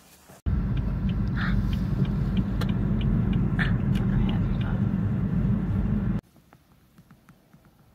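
Car cabin road noise: a steady low rumble of a moving car heard from inside, with faint light ticks and two short higher squeaks, about one and three and a half seconds in. It cuts in abruptly just after the start and cuts off abruptly near the end.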